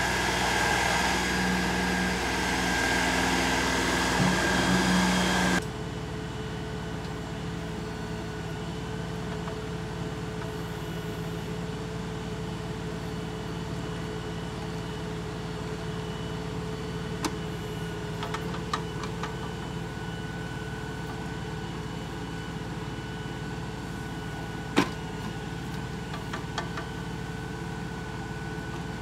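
LS compact tractor's diesel engine running steadily, louder for the first few seconds while the loader dumps soil, then dropping suddenly to a lower steady running while the backhoe digs. A few short sharp knocks come from the backhoe working, the loudest about 25 seconds in.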